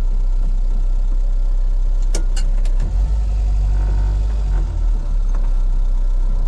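Renault 4's engine running at low speed as the car creeps along a rough track, a steady deep rumble heard from inside the cabin that swells for a couple of seconds in the middle. A few sharp clicks come about two seconds in.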